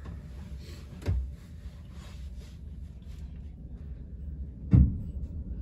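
Onboard running noise of a Southern Class 377 electric multiple unit: a steady low rumble, with two sharp knocks, one about a second in and a louder one near the end.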